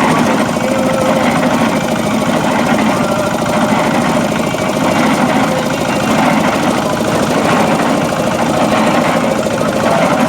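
Diesel engine of a cement mixer running steadily with a rapid, even chugging beat. It is running again after a hard-start problem, fired up by a capful of oil poured into its exhaust.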